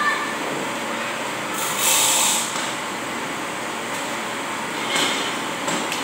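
Steady whir of an electric pedestal fan running close by, over metalwork on a steel-sheet floor: a harsh hiss lasting under a second about two seconds in, and two short clanks near the end.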